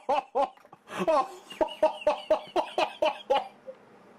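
A man's rapid string of short, pitched vocal yelps, about a dozen in three seconds, stopping near the end. They are his reaction to the pepper burn of a hot-pepper ginger beer he has just sipped.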